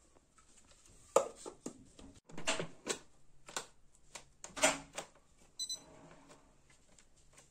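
Stainless-steel jar being set onto and seated in the plastic base of an Atomberg BLDC mixer grinder: a series of clunks, clicks and short scrapes, loudest about a second in and again past halfway, followed by a brief high-pitched tone. The motor is not running.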